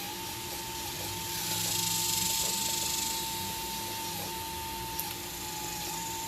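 Hydraulic pump of a radio-controlled Liebherr 954 scale excavator whining at a steady pitch over a hiss, the pitch dipping briefly a few times. The hiss swells louder for a second or so about two seconds in, and there is a single small click about five seconds in.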